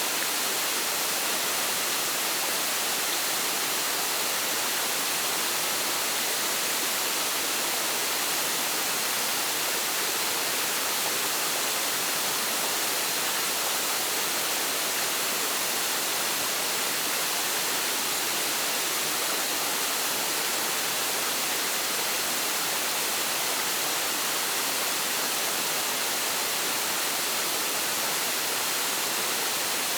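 Waterfall rushing: a steady, even hiss of falling water, mostly high-pitched with little low rumble.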